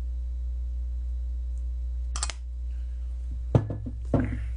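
A small glass sesame-oil bottle handled and set down on the table: a click about two seconds in, then a sharp knock with a softer second knock half a second later, over a steady low hum.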